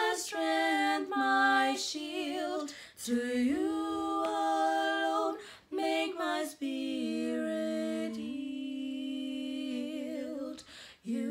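Two women singing a slow worship song a cappella, their voices together in long, held notes, with a long sustained note near the end.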